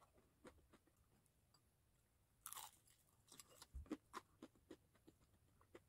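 Faint crunching and chewing of crispy fried chicken, with a sharper crunch about two and a half seconds in followed by a run of small crunches.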